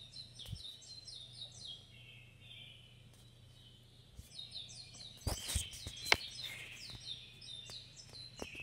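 Rapid, high, bird-like chirps repeating several times a second, breaking off for a couple of seconds near the middle and then resuming. A few sharp knocks come just past halfway, over a faint steady low hum.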